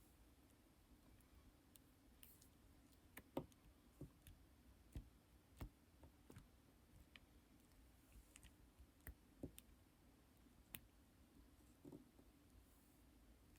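Faint, irregular clicks and soft taps from lipstick being handled.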